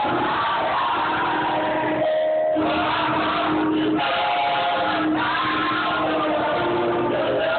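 Gospel praise music with a group singing in held notes, briefly dropping away about two seconds in.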